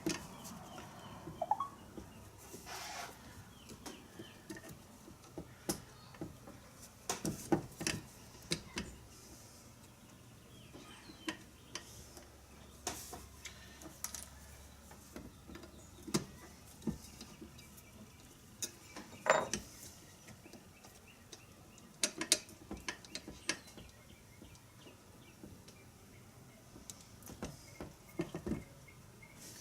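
Small metal tools and parts of an animatronic head mechanism being handled on a workbench: scattered clinks, taps and light knocks, with a few louder knocks here and there.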